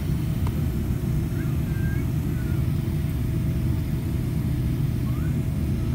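Steady low rumble of a jet airliner's engines and airframe heard from inside the passenger cabin, with a faint steady hum above it.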